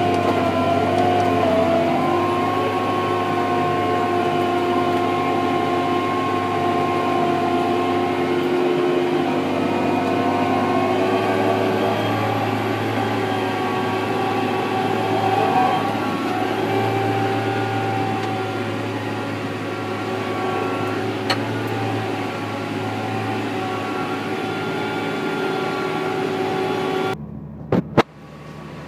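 John Deere 8400T tractor engine running steadily under load while pulling a chisel plough 5 inches deep. Near the end the sound drops off abruptly, with two sharp clicks.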